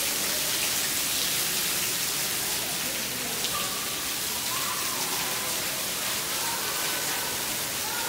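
Water splashing steadily from a small fountain jet onto pebbles in a pool, a constant hiss.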